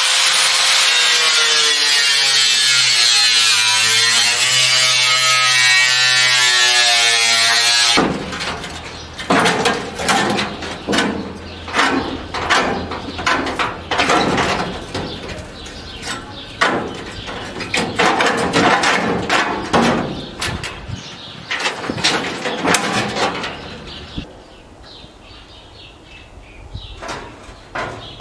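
TCM angle grinder running steadily under load, its abrasive disc grinding rust off the stove's steel sheet, for about eight seconds before cutting off abruptly. Then comes a run of irregular metallic knocks and clatter as sheet-metal panels are handled, dying down near the end.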